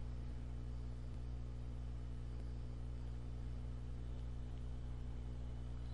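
Steady low electrical hum with a faint hiss, the background noise of the recording setup.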